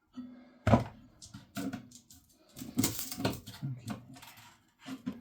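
Sharp metal clanks and knocks from the boiler's tank being handled and worked open.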